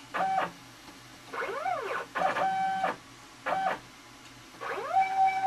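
Stepper motors of a homemade CNC router whining as the gantry is jogged in short keyboard-driven moves. Each move's whine rises in pitch as the motors speed up and falls as they stop: four short moves, then a longer one near the end that rises and holds a steady pitch.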